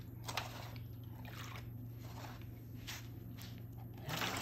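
Liquid dye splashing and sloshing in a foil pan as it is scooped up with a cut-off plastic bottle and poured over pussy willow branches: several short splashes, the loudest near the end.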